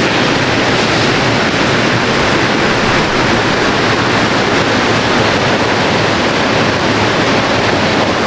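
Loud, steady rushing noise with no distinct strikes or tones.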